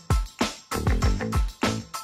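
Background music with a steady, fast beat of deep kick-drum hits.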